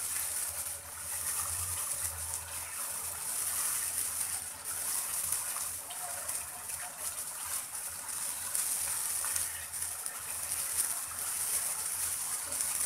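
Prawns cooking in a thick tomato and coconut-milk masala in a non-stick frying pan, sizzling with a steady hiss while a silicone spatula stirs them.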